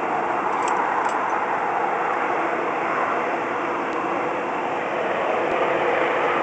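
F-15 Eagle fighter jets' twin jet engines running at high power for takeoff: a steady, heavy rush of jet noise with no breaks.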